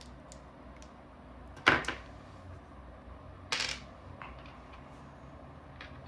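Small parts of a disassembled Planet Eclipse LV2 paintball marker being set down on a work surface: a sharp knock a little under two seconds in, a second, rattling clatter about two seconds later, and a few light clicks.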